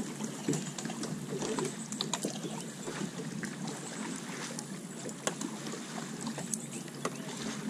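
Shallow water lapping and splashing against beached jet ski hulls as a person wades alongside, a steady wash dotted with many small splashes and ticks; no engine running.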